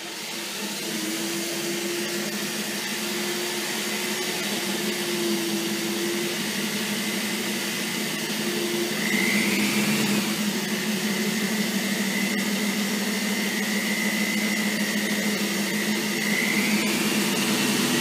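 Corded electric drill running steadily with a step bit, boring a hole through clear acrylic sheet. It spins up at the start, and its whine rises and gets a little louder about nine seconds in.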